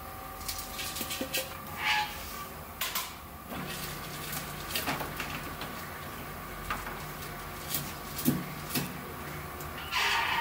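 Scattered knocks and clicks of a scoop working in a tub of flour. From about three and a half seconds a spiral dough mixer runs with a steady low hum for several seconds. Near the end a paper flour bag rustles.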